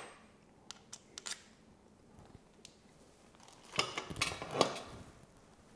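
Light metallic clicks and clinks of motorcycle clutch plates and parts being handled and set down in a metal tray: a few single clicks in the first second and a half, then a short clatter about four seconds in.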